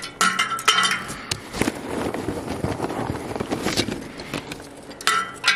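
Pieces of charcoal knocking and clattering onto the steel floor of a sheet-metal smoker firebox, each knock ringing briefly. There is a burst of clatter just after the start and another near the end, with rustling from the paper charcoal bag in between.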